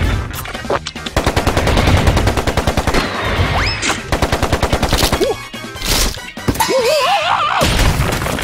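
Cartoon sound effects: a fast rapid-fire rattle for about two seconds, another short burst of rattling a little later, then a high wobbling cartoon scream from the larva characters near the end.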